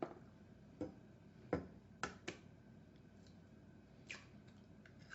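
A handful of light, separate knocks and clicks, the loudest about a second and a half in, from eggs being handled against a plastic microwave egg cooker.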